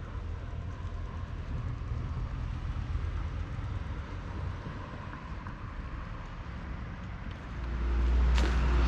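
Steady low outdoor rumble of background noise; near the end a much louder low rumble swells in.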